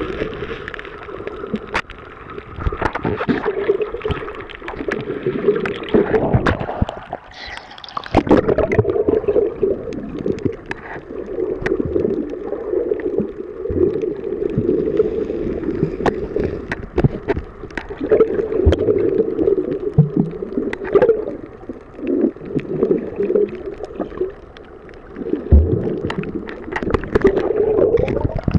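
Underwater sound picked up through a camera's waterproof housing: muffled gurgling and sloshing water that swells and fades in uneven surges, with scattered sharp clicks and knocks throughout.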